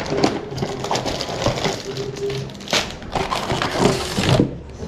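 Irregular crackling and crinkling of takeaway food packaging being handled and opened.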